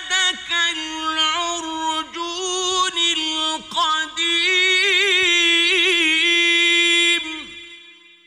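A solo male Quran reciter's voice chanting in the ornamented mujawwad style: long melismatic held notes with quick vibrato and ornaments. The phrase ends about seven seconds in, and its echo fades away.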